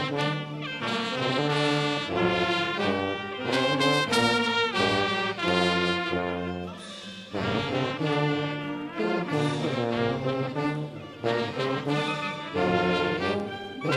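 Thai wind band of trumpets, trombones, saxophones and clarinets, with Thai drums, playing a traditional Thai tune arranged for band, over a steady bass line.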